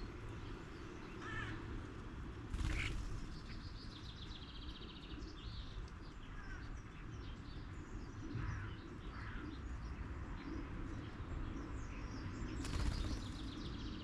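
Garden songbirds chirping and calling, with short whistles and a quick rattling run of notes. There are two brief rushing sounds, about three seconds in and near the end, over a steady low background hum.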